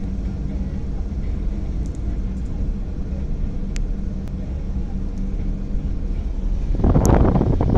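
Steady low engine and road rumble heard from inside a car moving slowly in traffic. Near the end a much louder rushing noise sets in.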